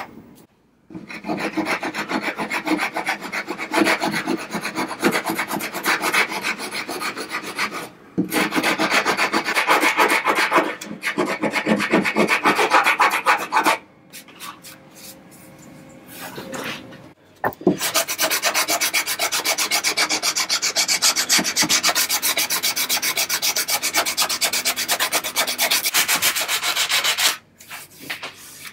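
A new wooden piece being shaped by hand with a file and sandpaper: fast, steady back-and-forth scraping strokes in two long runs, broken by a pause about halfway.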